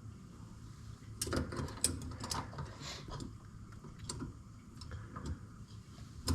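Metal wrench clicking and scraping on an over-tightened sink fitting as it is worked loose, a cluster of sharp clicks about a second in and lighter ticks after.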